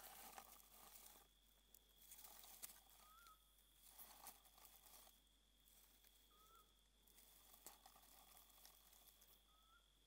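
Near silence: faint night-time ambience with a faint steady high tone, and three short faint whistled calls about three seconds apart.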